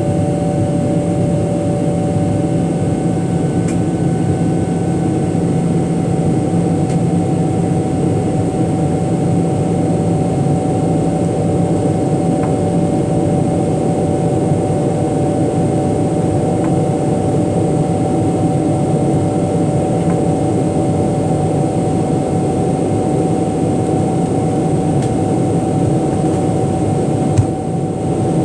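Jet airliner cabin noise from inside the cabin: a steady drone of engines and rushing air, with a constant hum of a few steady tones. A short click sounds near the end.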